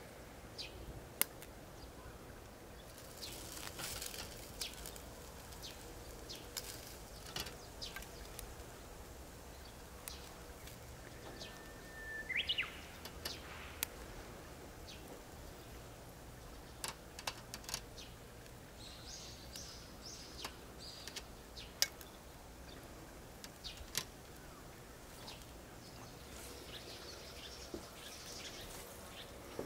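Thin wagyu slices crackling and popping over charcoal on a wire-mesh grill: scattered sharp pops with short stretches of high sizzling hiss. A single short rising bird chirp about twelve seconds in.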